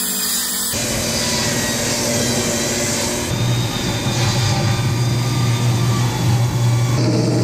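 Portable table saw running while a long board is ripped into narrow strips: a steady machine drone that shifts abruptly twice near the start, then settles into a strong low hum for the second half.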